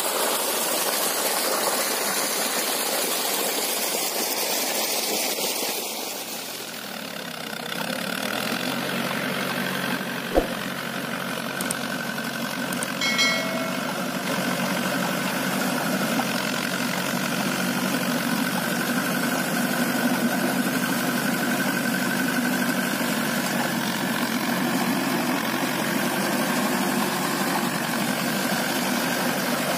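Water gushing and splashing from a borewell outlet pipe for the first several seconds, then a Mahindra 575 DI tractor's four-cylinder diesel engine running steadily under load as it pulls a rotavator through flooded paddy mud. A short chime rings about halfway through.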